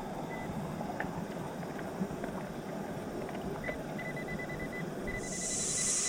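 River water rushing and churning close to the microphone at a waterfall, with scattered small clicks. About four seconds in a faint, rapid, high electronic beeping starts from a metal detector at work, and a high hiss comes in about a second later.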